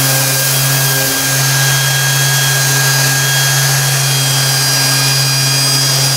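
Random orbital sander running steadily against an aluminium plate: a constant motor hum over the hiss of the abrasive pad, dipping briefly about a second in. It is sanding the plate to an even texture.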